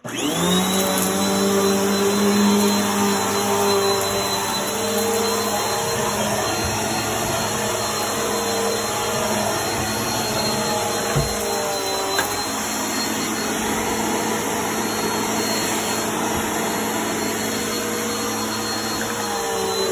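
Bissell Helix vacuum cleaner switching on and spinning up, then running steadily with a whining motor while it picks up crunchy debris, with a couple of short clicks about halfway through.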